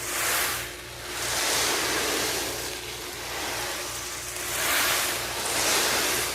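Homemade ocean drum, a pizza box filled with corn kernels, being tilted back and forth so the kernels roll across it. It gives a surf-like hiss that swells and fades in repeated waves.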